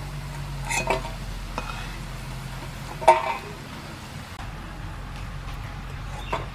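A metal spatula scraping and clinking against an aluminium wok and a steel plate as fried bitter gourd slices are lifted out of the oil, with a light sizzle of frying oil underneath. Three clanks, the loudest about three seconds in; the sizzle fades after about four seconds.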